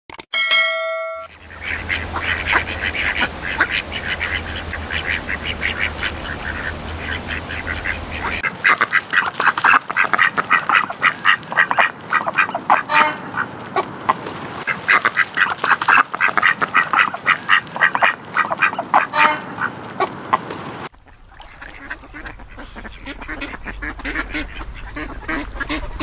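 A brief ringing tone, then ducks quacking, loud and rapid, in several spliced recordings. The first has a low rumble under the calls, a denser run of quacks starts about 8 seconds in, and quieter calling follows from about 21 seconds in.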